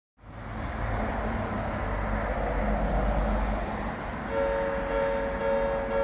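Road traffic rumble as a vehicle passes. About four seconds in, a Japanese level crossing's electronic warning bell starts up: the old Odakyu-type tone, a high electronic ding repeating at a steady beat.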